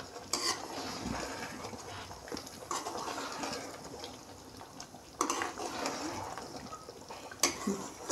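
A steel spoon stirring chicken pieces in thick masala in a metal pan, scraping and clinking against the pan, with a stronger scrape every two to three seconds as the chicken is sautéed (bhuna) in its gravy.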